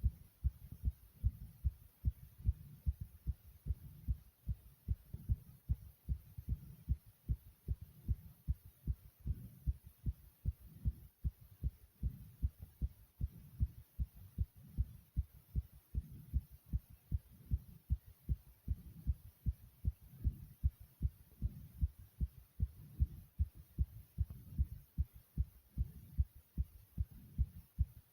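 Human heartbeat beating fast: rapid, regular low thumps, several a second, running on without a break.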